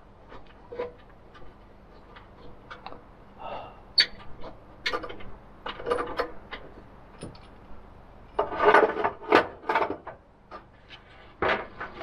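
Metal clicks, knocks and light rattles of a portable two-burner camp stove being handled and folded up, with a louder run of clattering about nine seconds in.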